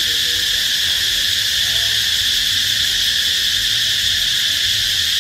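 Loud insect chorus in tropical vegetation, a continuous high-pitched drone that holds steady throughout.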